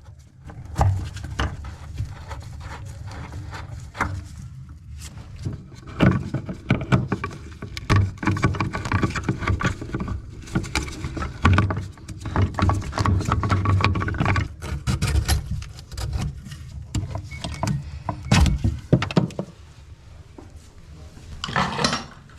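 Irregular clanks, clicks and scrapes of a plumbing tool and faucet parts being worked under a bathroom sink while the old faucet is removed, over a steady low hum.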